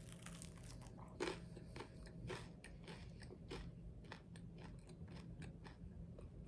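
Quiet close-miked chewing of crunchy garlic bread: an irregular run of crunches and mouth clicks, a little louder about a second in and again after two seconds.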